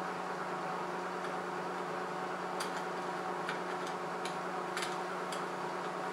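Scattered light clicks and taps, about six of them, from plastic headlight parts being handled and fitted, over a steady background hum.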